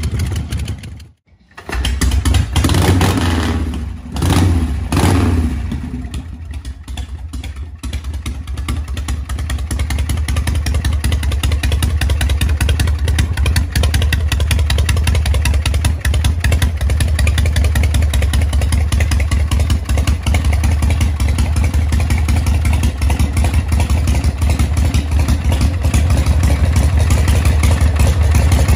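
Harley-Davidson Shovelhead V-twin running through open drag pipes. It is blipped twice, a few seconds in, then settles into a steady idle.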